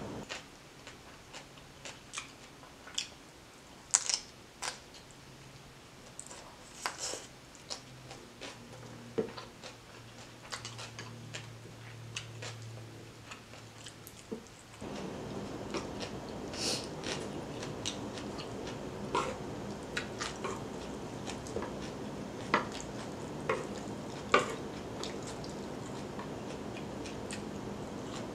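Chewing fried ramen noodles, with scattered short clicks of chopsticks against a bowl and wet mouth sounds. A steady background noise grows louder about halfway through.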